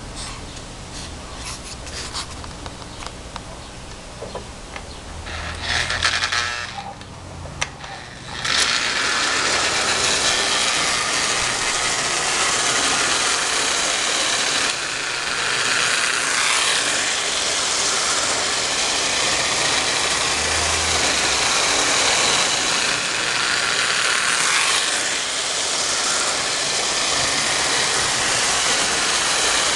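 Toy electric train running on Marx O34 tinplate track: a Lionel 246 steam locomotive's motor and wheels make a steady running noise, with scattered clicks early on, that becomes much louder about eight seconds in and stays loud.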